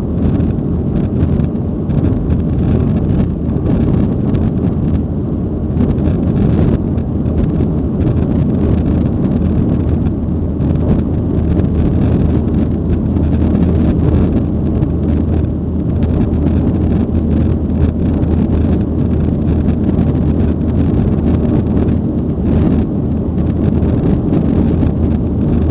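Steady low rumble of a Boeing 737-800 cabin in the climb after takeoff: its CFM56-7B turbofan engines and the airflow over the fuselage, heard from a window seat by the wing.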